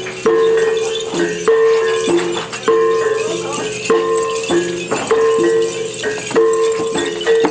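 Iban gong ensemble music: ringing gongs struck in a steady repeating pattern, two pitches alternating, with a stroke about every 0.6 seconds, over a light rattling.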